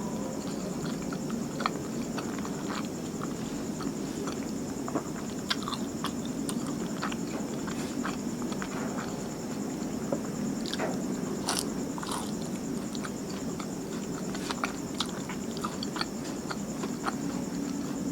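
Close-miked chewing and mouth sounds of a person eating martabak manis, a soft, thick sweet pancake. Scattered small wet clicks and smacks sit over a steady low background hum and a faint high hiss.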